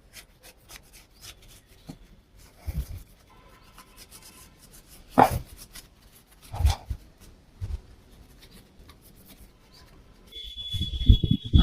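A cloth wiping a bicycle disc brake rotor clean of alcohol: soft rubbing with a few short knocks from handling the wheel and brake.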